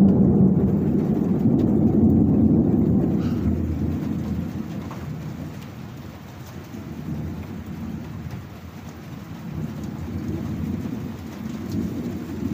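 Thunder rumbling over steady rain: a low rumble breaks in suddenly, is loudest for the first few seconds, then rolls away, with weaker rumbles returning near the end.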